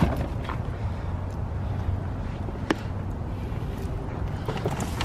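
A low, steady rumble with scattered light knocks, clicks and rustles as cardboard toy boxes are handled and shifted in a car trunk.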